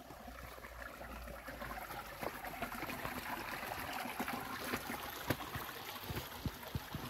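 Small mountain stream trickling and rushing over stones, a steady water noise that grows a little louder over the first few seconds. A few sharp knocks stand out briefly above it.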